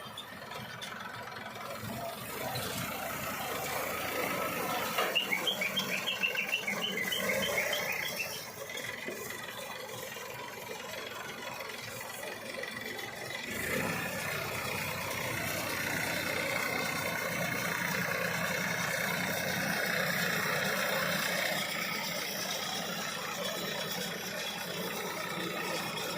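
A Jaysan baler running behind a tractor: a steady mechanical clatter of engine and machinery. A run of quick, high, repeated squeaks comes about five seconds in.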